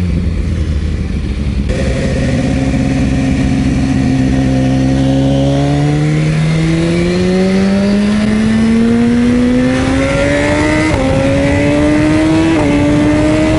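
BMW motorcycle engine pulling under acceleration: the note holds steady for a few seconds, then climbs in a long rising pull. Near the end it drops abruptly twice as the rider shifts up a gear, climbing again after each shift.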